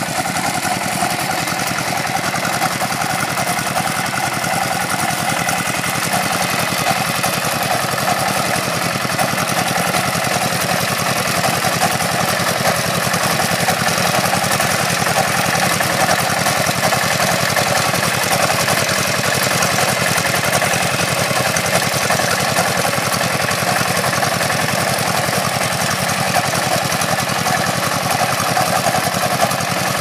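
A walk-behind double-drum vibratory road roller's small engine running steadily at an even speed as the machine rolls over loose crushed stone.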